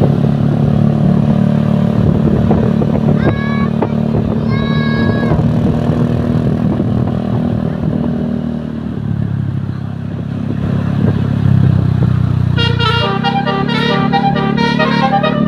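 Bus engine running, with two short horn toots about three and four and a half seconds in. Near the end the bus's telolet multi-tone horn starts playing a rapid, jingling melody.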